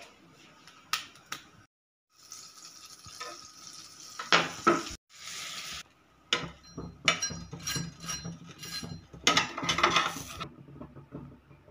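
Metal spatula and utensils scraping and clinking against a grill pan and a butter tub while sandwich bread is toasted, in several short clips separated by brief silent cuts.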